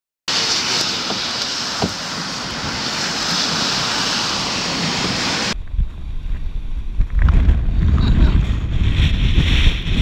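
Tropical-storm wind and wind-driven rain with a steady hiss. About halfway through, this changes abruptly to strong, gusty wind buffeting the microphone, with rough surf breaking behind it.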